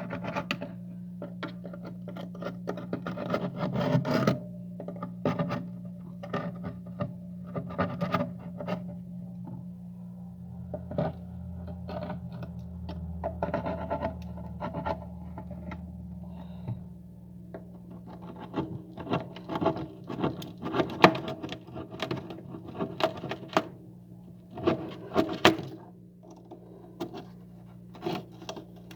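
Frost being scraped off the inside of a freezer: irregular rasping scrapes in quick runs, with short pauses between them. A steady low hum runs underneath.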